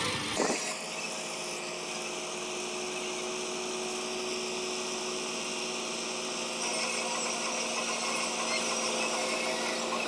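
Combine harvester running while its unloading auger pours threshed wheat onto a grain heap: a steady mechanical whine with several held tones. It grows a little louder about two-thirds of the way through.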